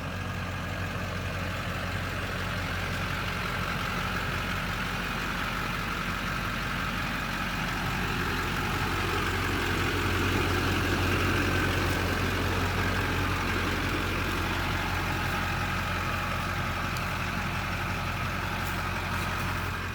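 A 2003 Chevy Duramax 2500 HD's 6.6-litre turbo-diesel V8 running steadily with a constant low hum, growing slightly louder about halfway through.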